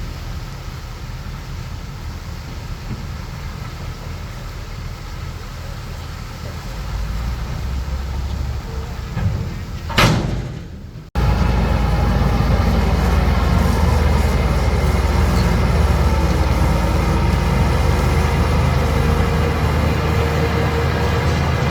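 Heavy diesel engine of earthmoving machinery running with a low rumble. About ten seconds in there is a brief loud noise, then the sound cuts off abruptly and comes back louder and steadier.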